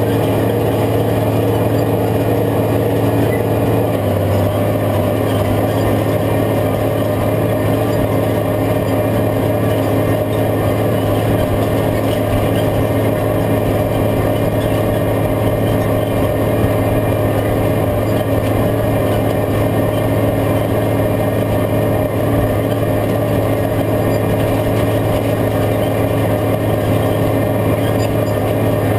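Case IH 5230 tractor's six-cylinder diesel engine running steadily under load while pulling a field cultivator through the soil. Its note shifts slightly about four seconds in.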